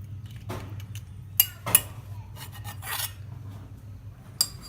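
Metal spoon scraping and clinking against a cooking pot as fried cashews are spread over the pulao, with a few sharp clinks.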